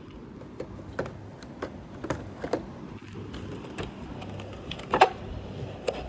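Toy packaging being handled: irregular light clicks and taps, with a louder clack about five seconds in.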